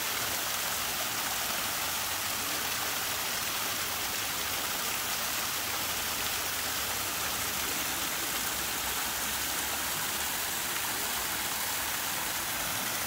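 Small waterfall splashing down over rocks into a pond: a steady rush of falling water.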